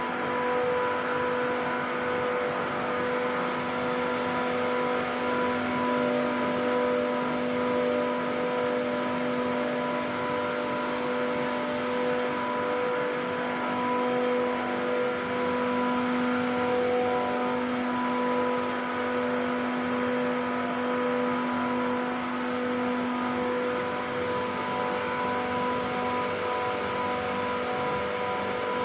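Water-cooled screw chiller running steadily: the screw compressor gives a constant hum with a clear tone and its overtones over an even machine hiss.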